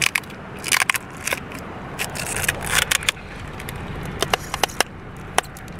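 Packing tape and a cardboard package being handled: a string of sharp crackles, scrapes and crinkles, with a few longer rasping stretches, over a steady low hum.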